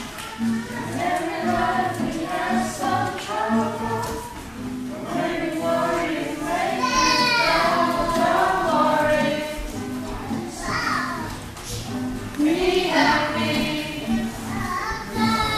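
A family group of adults and children singing together, accompanied by an acoustic guitar played in a steady, even rhythm.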